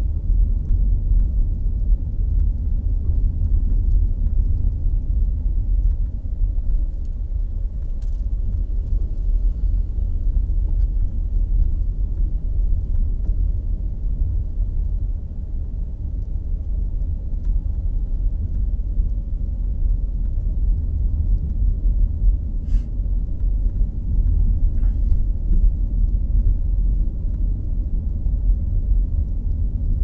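Steady low rumble of a car driving slowly, heard from inside the cabin: engine and tyre noise, with a couple of faint clicks.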